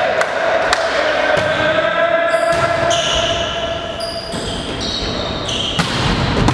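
A volleyball being served and struck during a rally, with several sharp ball hits and short high sneaker squeaks on the gym floor as the players move, echoing in a large hall over a steady pitched hum.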